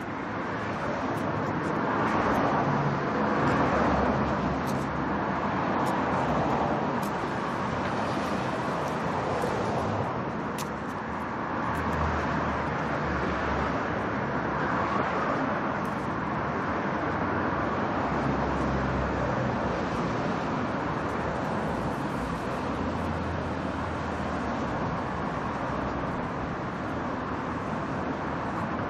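Dense city street traffic: a steady wash of car engines and tyre noise, swelling and easing as vehicles pass, loudest for a few seconds near the start.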